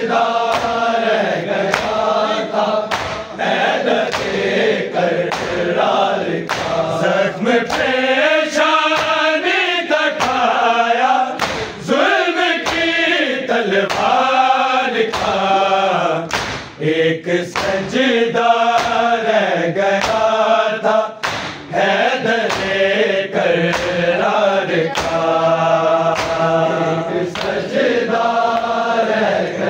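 Male voices chanting an Urdu noha in chorus, with long held, wavering notes over a steady percussive beat.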